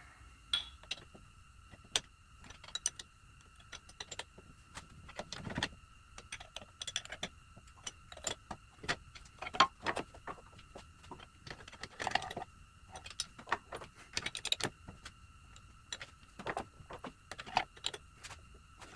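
Irregular metallic clicks and clinks of a hand wrench working on nuts, tightening them down, with a few short quick runs of clicks. A faint steady high whine sits underneath.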